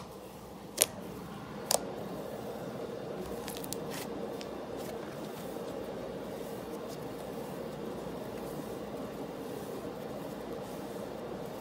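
Cloud slime being squished and pulled by hand, with two sharp snaps in the first two seconds, over a steady background hum.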